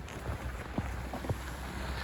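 Wind buffeting the microphone with a steady low rumble, and three faint crunches about half a second apart, like footsteps in packed snow.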